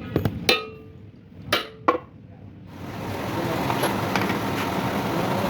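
Steel parts clanking: five sharp metal knocks, each ringing briefly, in the first two seconds. About halfway through, a steady machine noise comes in and grows louder.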